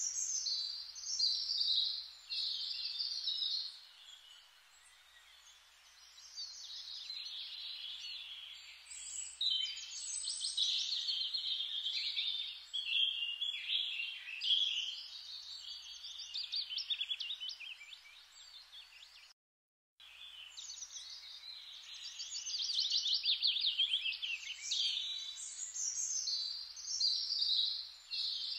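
Many birds chirping and singing together in a dense, busy chorus. It cuts out completely for a moment about two-thirds of the way through, then resumes.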